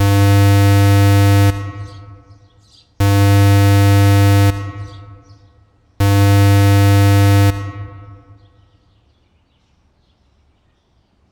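Electronic warning-siren tone from an outdoor warning system test: a steady, unwavering horn-like note sounded in three 1.5-second blasts, one every three seconds. Each blast trails off in an echo.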